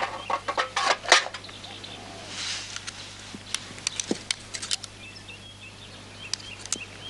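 Scattered small clicks and taps of fingers handling wires and parts inside a microwave oven's control circuitry, with a brief scrape about two and a half seconds in, over a faint low hum.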